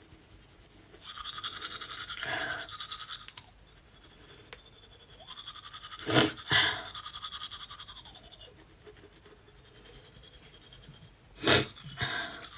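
A toothbrush scrubbing teeth in stretches, broken by sharp coughs: two close together about six seconds in and another near the end. The coughing comes from a chest cold with asthma.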